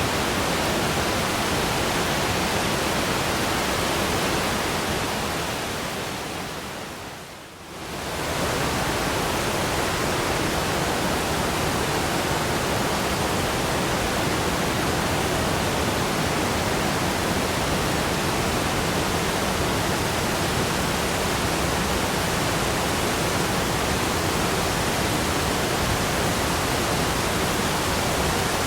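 Waterfall: falling water making a steady, even rush with no other sounds on top. About six seconds in it fades down and comes back up within a couple of seconds, like an edit in the recording.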